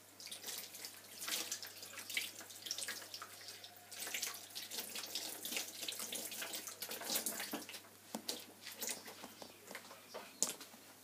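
Hands being washed at a kitchen sink: irregular splashing and dribbling of water.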